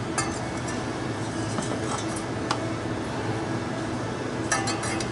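Scattered metallic clicks and clinks from a hand tool and the aluminium fan blade as the blade is worked off a condenser fan motor's shaft, with a cluster of clinks near the end. A steady low hum runs underneath.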